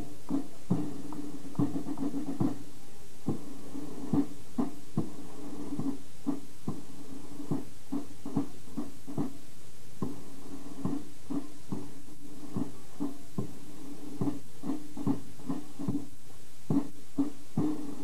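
A marching drum beating time, about two to three beats a second, over a faint sustained tone.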